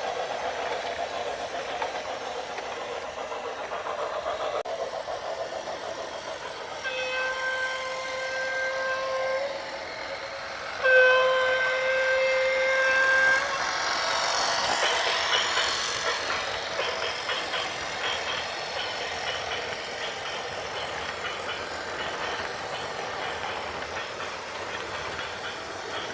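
A horn sounds two long steady blasts of about two seconds each, over a continuous rattling rumble of a heavy vehicle, followed by a loud hiss.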